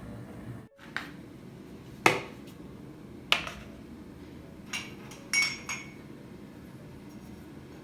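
Dishes and cutlery being handled: about six separate knocks and clinks of hard tableware, one of them ringing briefly with a clear tone like a glass or ceramic cup.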